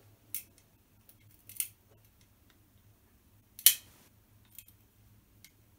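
A handful of sharp metallic clicks and light scrapes from small bolts being driven into the CNC router's parts with a hand tool, the loudest click a little past halfway.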